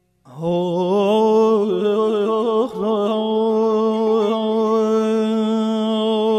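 A singer's wordless vocal line, starting suddenly a quarter second in: a few seconds of quick ornamental turns, then one long held note with vibrato, in the style of a sung Persian classical song.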